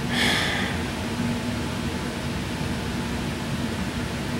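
Steady mechanical hum and hiss of room background noise, with a short hiss about a quarter second in.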